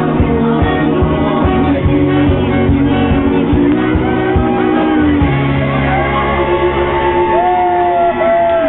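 A band playing rock music, with guitar, bass and drums. A voice sings or shouts over it in the last few seconds.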